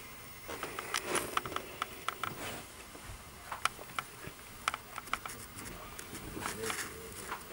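Irregular light clicks and rustling, as of things being handled and shifted in a cluttered closet.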